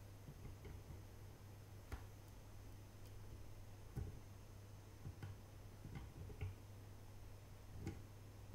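Faint, scattered clicks of flush-cut side cutters working on the legs of a D-Pak 7808 voltage regulator, the sharpest about four seconds in, over a low steady hum.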